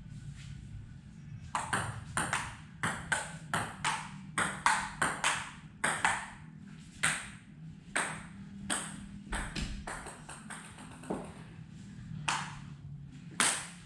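Table tennis rally: the celluloid ball clicking back and forth off the paddles and the Stiga table, about two sharp clicks a second, starting about a second and a half in with a brief break near the end.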